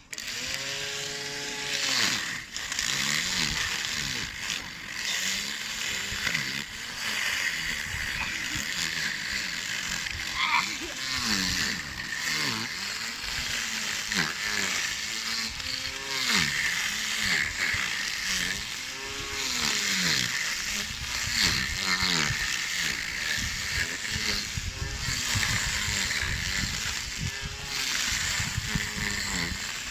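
Small electric lawn mower's motor whining as it cuts grass, its pitch rising and falling over and over, with a steady hiss of cutting underneath.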